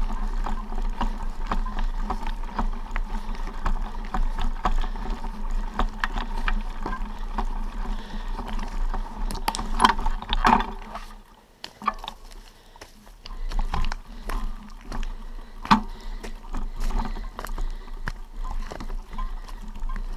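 Footsteps crunching on a stony forest trail over a steady rushing noise on a body-worn camera's microphone, with irregular clicks and scrapes of stones underfoot; the noise drops away for a couple of seconds about halfway through.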